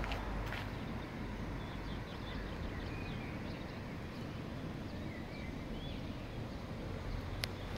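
Steady low outdoor rumble, with a few faint, short, high chirps in the middle and one sharp click near the end.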